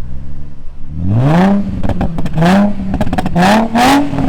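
Nissan G35's 3.5-litre V6 revved hard several times in quick succession, the engine note climbing steeply to a raspy peak and dropping back with each blip, about four revs in four seconds.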